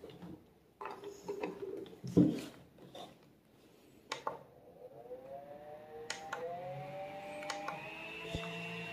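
Twin-head electric fan switched on with clicks of its speed button, its motors whirring up to speed and rising in pitch with each further click as it steps through the speeds. A thump and light handling knocks come before it starts.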